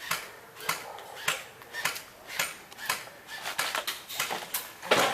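Footsteps of a person walking briskly over crunchy ground, about two steps a second, with one heavier step near the end.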